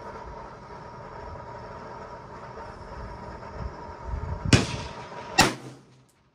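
20-inch AR-15 rifle firing two sharp, loud shots about a second apart, the first about four and a half seconds in, over a steady background noise.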